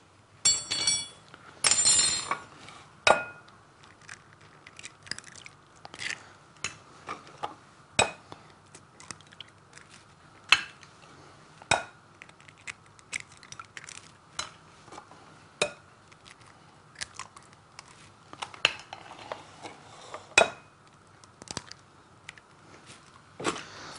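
Eggs being cracked one after another on the rim of a glass bowl: sharp cracks and taps of shell with light clinks of glass, spaced out over the whole time. Near the start there are a couple of ringing clinks of glassware.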